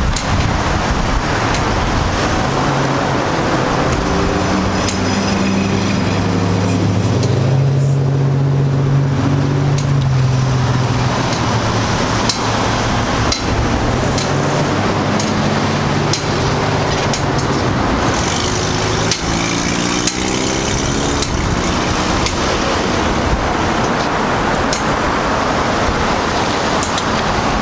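Road traffic noise: a steady rush of vehicles with engine notes that rise and fall in pitch as vehicles speed up and slow down.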